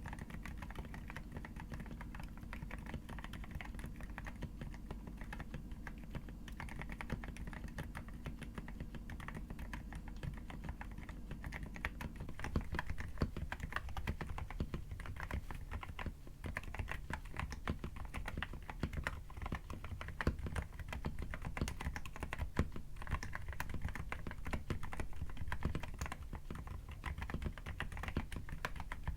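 Continuous fast typing on a mechanical keyboard fitted with Akko Haze Pink silent linear switches, a dense run of soft, damped keystrokes. The typing gets a little louder a little under halfway through.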